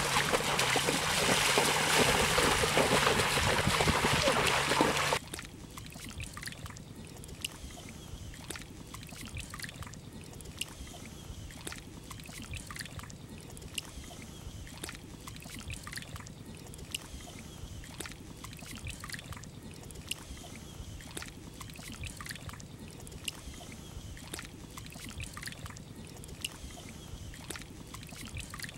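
Feet splashing hard and continuously through shallow pond water as two people run, cutting off suddenly about five seconds in. After that, quieter scattered small splashes and sloshes as hands and a plastic bucket scoop water and mud in the shallows.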